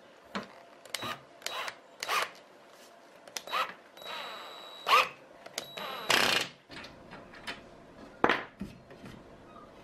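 Drill driving a steel threaded insert into a wooden rail through a bolt held in its chuck. Two short runs of the drill's motor whine come about four and six seconds in, among sharp clicks and knocks of metal parts being handled.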